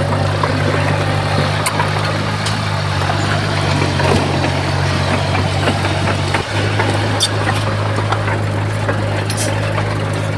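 Heavy diesel engine of earthmoving machinery running steadily, with a brief dip in its sound about six and a half seconds in.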